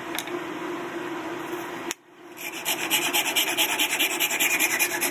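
Japanese pull saw cutting through a wooden dowel in quick, even strokes, about four a second, starting about two seconds in; a fainter steady noise comes before it.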